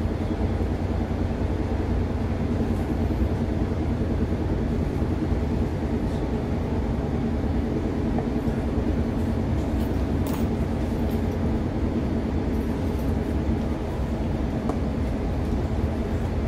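Steady running noise inside the carriage of a moving Great Western Railway diesel multiple unit: a low rumble of wheels on rail and engine, with a faint hum throughout. A faint click comes about ten seconds in.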